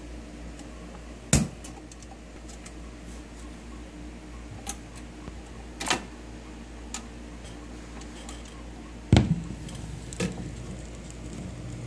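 Zenith Cobra-Matic record changer cycling: a steady low hum with a few sharp mechanical clicks and clunks as the changer drops the record and swings the tone arm. The loudest clunk comes about nine seconds in, and a smaller one follows a second later.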